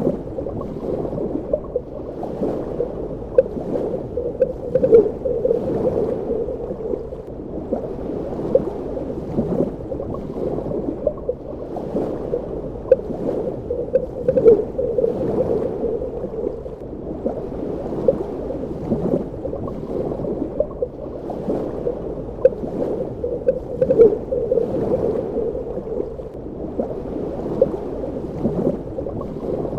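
Muffled underwater ambience: a dull, steady rush of water with frequent small bubbling pops, swelling a little louder every nine or ten seconds.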